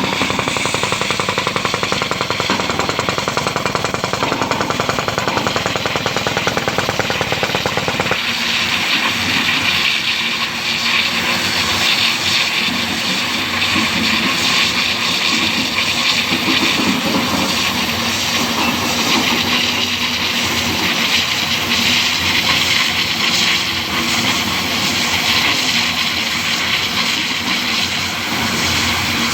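Diamond wire stone-cutting saw running: a fast, even rattle for about the first eight seconds, then a steady high hiss and grind of the diamond wire cutting through rock.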